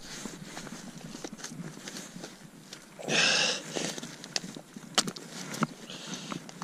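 Small metal clicks and clinks of a No. 1 foothold trap being set by hand in heavy rubber gloves, its stiff springs squeezed and the pan and trigger worked, with two sharper clicks about five seconds in. A short rush of rustling noise about three seconds in is the loudest sound.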